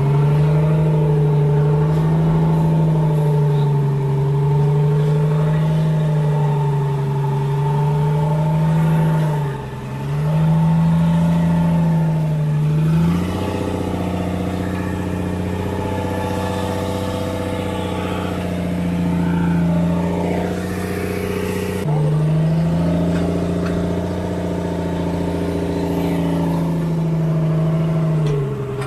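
Fishing boat's engine running, its pitch wavering up and down, with a sudden shift to a steadier, different tone about 13 seconds in and a shift back about 22 seconds in.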